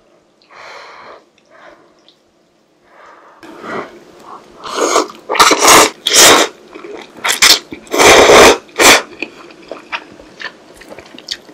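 Blowing on hot instant ramen noodles to cool them, then a series of loud noodle slurps between about four and nine seconds in, followed by softer chewing and mouth clicks.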